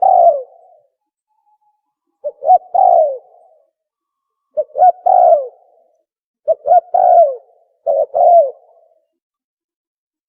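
Dove cooing, the Filipino tukmo call used as a hunting lure: phrases of two short notes and a longer falling coo, repeated about every two seconds, five phrases in all, the last two closer together.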